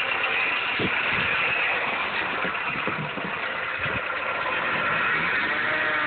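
Dodge Caliber engine idling with a loud, steady grinding whine and a few irregular knocks, which the owner puts down to a failing alternator pulley.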